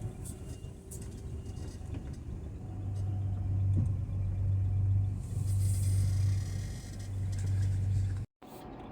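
A vehicle engine running with a low, steady hum that grows louder about three seconds in, then cuts off abruptly near the end.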